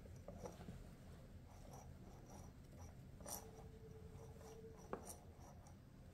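Faint rustling and light ticks of fingers handling thin nylon fishing line while tying a slip knot, with a sharper small click about five seconds in.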